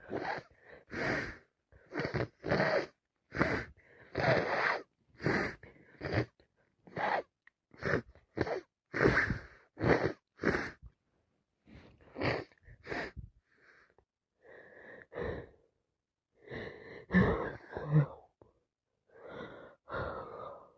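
A woman with a cold breathing in short, noisy bursts, with sneezes among them, about one to two a second, the bursts spacing out after about thirteen seconds.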